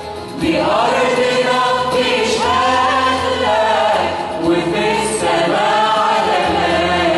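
Choir singing an Arabic Christian hymn, held notes moving from one to the next, the voices swelling back in about half a second in.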